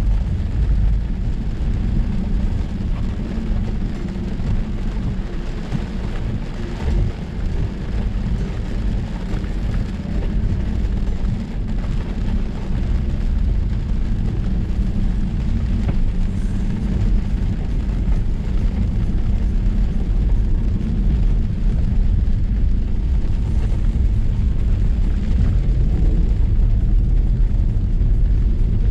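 Range Rover Sport driving along a wet dirt track, heard from inside the cabin: a steady low rumble of tyres and running gear, with rain on the body and windscreen.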